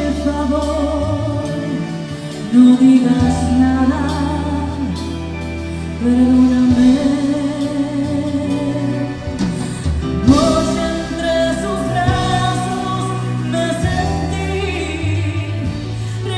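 A woman singing lead in a live Tejano band, holding long notes over bass guitar, accordion and drums. The music gets louder about two and a half seconds in and again about six seconds in.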